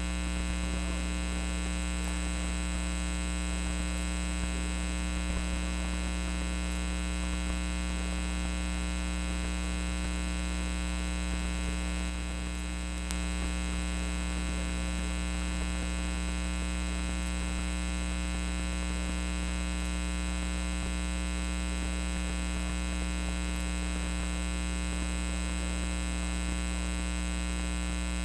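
Steady electrical mains hum, a buzz with many evenly spaced overtones reaching high up, with a brief slight drop in level about twelve seconds in and a few faint ticks.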